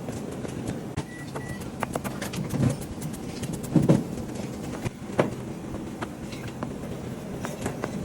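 Kitchen work sounds: scattered light clicks and a few louder knocks of utensils, about three of them standing out, over a steady low hum.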